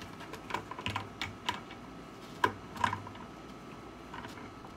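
Irregular light clicks and taps of pliers gripping and turning a stainless steel tee fitting threaded into a plastic bucket's side wall, tightened just enough not to leak.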